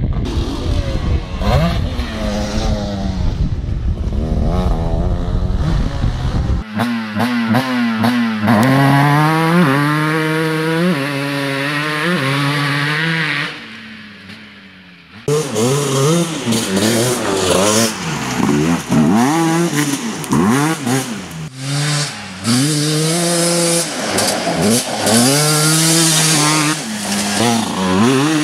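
Two-stroke sport quad engines revving hard and accelerating, their pitch climbing and dropping again and again. The sound cuts abruptly to a different ride twice, about a quarter and about halfway through, with a quieter stretch just before the second cut.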